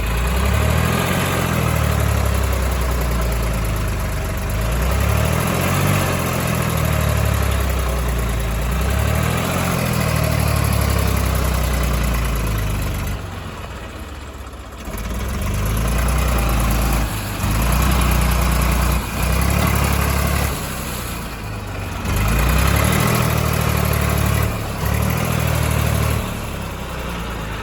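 A diesel engine revving up and down over and over, its pitch rising and falling in repeated sweeps, with a couple of brief quieter lulls.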